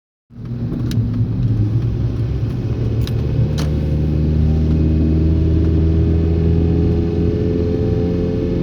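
Car being driven, its engine and road noise running steadily, with a few short sharp knocks about a second in and twice around three seconds in: the clunking noise the car makes when driving.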